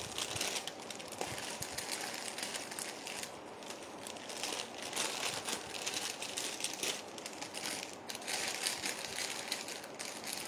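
Packaging crinkling and rustling in the hands, with many small irregular crackles, as jewellery pieces are put away and the next ones taken out.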